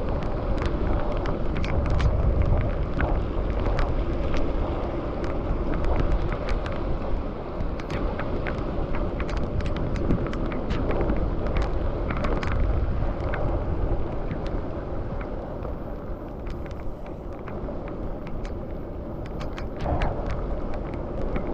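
Wind rushing over the microphone during a bicycle ride, over a steady low rumble of road noise, with many scattered sharp ticks.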